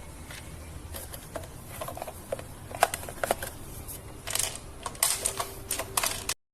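Irregular clicks and light clatter of something being handled, over a low steady hum; it all cuts off abruptly near the end.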